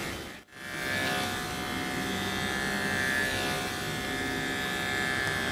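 Electric dog clippers running with a steady hum as they cut through a puppy's coat; the sound drops out for a moment about half a second in, then carries on.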